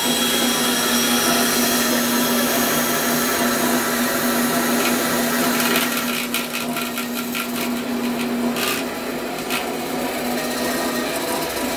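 Bandsaw running with a steady motor hum. About halfway through, a run of sharp clicks and rattles joins in, and the hum settles slightly lower near the end.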